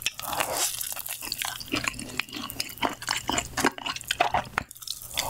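Close-miked eating: a crunchy bite into a deep-fried, breadcrumbed bun filled with boiled egg, with a dense crackle in the first second, followed by moist chewing full of scattered crisp crackles.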